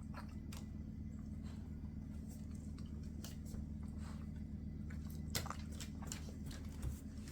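Quiet room tone: a steady low hum with scattered faint soft clicks, one slightly louder a little past five seconds in.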